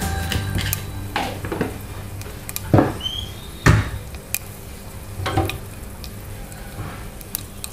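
Spatula stirring dry red chillies and seeds frying in hot oil in a nonstick kadai: light sizzling with about five scraping strokes against the pan, the loudest about three and four seconds in.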